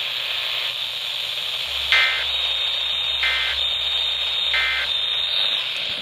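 Weather-alert radio sounding the Emergency Alert System end-of-message code, which marks the end of the alert: three short warbling data bursts about 1.3 seconds apart, over steady radio hiss.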